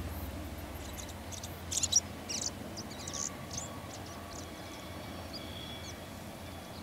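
A bird chirps in a quick run of sharp, high calls about two seconds in, the loudest thing here. Under it runs the faint low rumble of a distant diesel freight train crossing a steel truss bridge, fading away.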